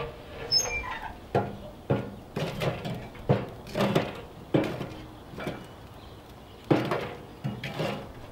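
Split firewood being loaded into the steel firebox of an Old Country Angus offset smoker: about a dozen hollow wooden knocks and clunks against the steel, some with a short metallic ring.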